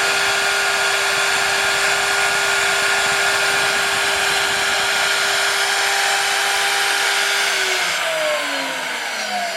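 High-speed spindle motor of a DIY CNC PCB drill running steadily with a whine and airy hiss, then winding down about three-quarters of the way through, its pitch falling as it coasts to a stop.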